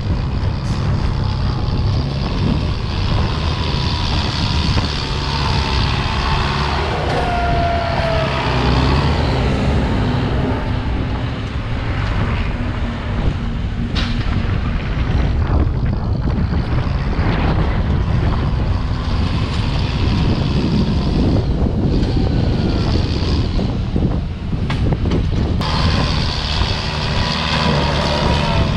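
Farm tractor diesel engine running loud and steady under load while pushing soil. A thin whining tone bends in pitch a few seconds in and again near the end.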